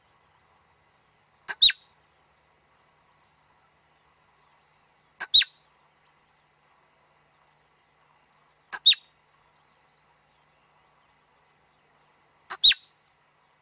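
Marmot calling: four sharp, high calls evenly spaced, about one every three and a half seconds, each a quick short note followed at once by a louder one. Fainter, brief chirps come in between.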